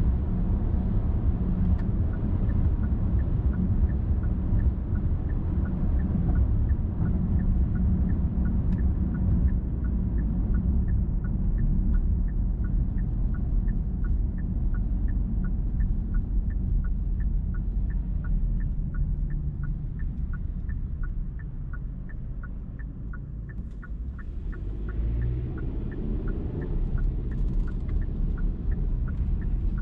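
Car driving on a highway: steady low engine and tyre rumble, with a regular light ticking throughout. The rumble eases off about three quarters of the way through, then builds again.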